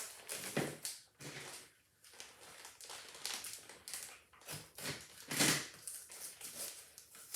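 Packaging being handled and torn open by hand: irregular bursts of rustling and crinkling, with the loudest burst about five seconds in.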